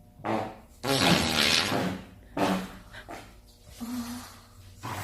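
A run of farts: a short one, then a longer, louder noisy one lasting about a second, another short one, and a brief low squeak near the end.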